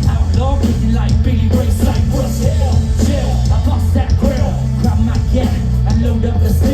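A loud live rock band playing, with heavy bass and drums and a pitched melodic line bending over them.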